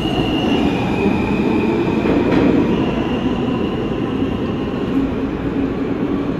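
New York City Subway train running through the station: a steady loud rumble of wheels on rail, with a high whine that shifts up and down in pitch in steps.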